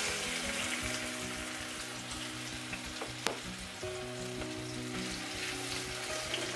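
Sliced onions sizzling in hot oil in a metal karai, a steady frying hiss. There is a single sharp click about three seconds in, and a spatula stirs the onions near the end.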